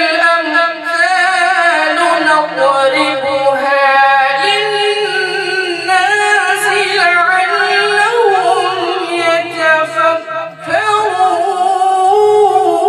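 A male qari chanting Quran recitation (tilawat) into a handheld microphone, drawing each phrase out in long, ornamented melodic notes. There is a brief break for breath about ten and a half seconds in before the next long phrase.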